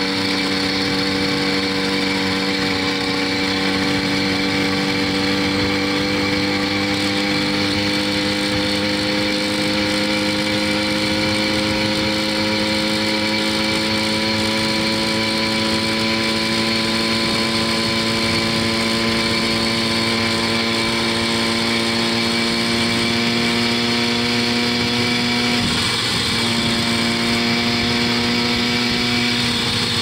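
80cc two-stroke motorized-bicycle engine kit running flat out as the bike works toward its top speed, its pitch climbing slowly and evenly. Near the end the note briefly wavers, then holds steady.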